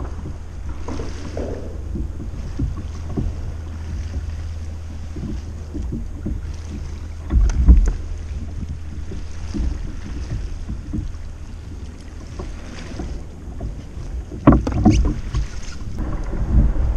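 Wind buffeting the microphone and water lapping against a plastic fishing kayak, a steady low rumble with small clicks, broken by two short clusters of thumps about seven and a half seconds and fourteen and a half seconds in.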